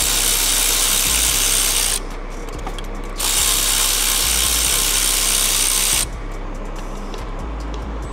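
Cordless electric ratchet running in two bursts of about three seconds each, with a short pause between them, as it turns a fastener in the engine bay.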